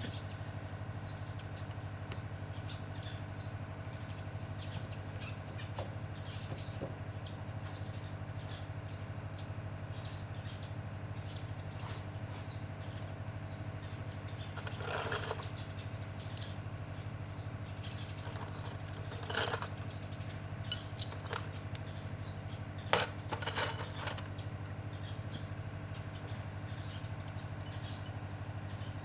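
A few sharp metallic clinks and short clatters of metal parts or tools being handled, over a steady low hum; the clinks come in the second half, the loudest late on.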